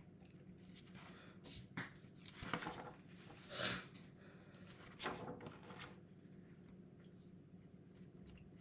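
Faint, scattered rustles and light handling sounds of a paper planner and sticker sheet being handled, the loudest about three and a half seconds in, over a steady low hum.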